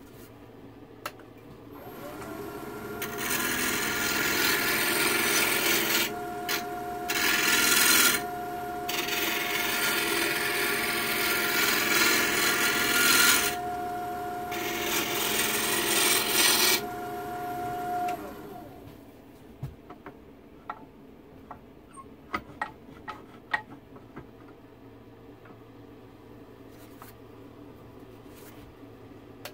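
Small wood lathe starting up with a rising motor whine, then a long steady hiss as a turning tool cuts the spinning wooden blank, broken by a few short pauses. The lathe winds down about two-thirds of the way through, leaving light taps and clicks.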